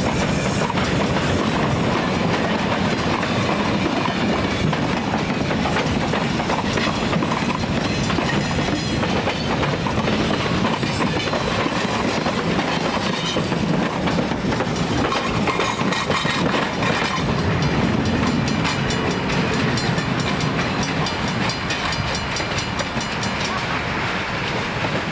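Steam-hauled freight train rolling past, a steady rumble of steel wheels on rail, with a rapid, even clicking of wheels over rail joints that grows clearer in the second half.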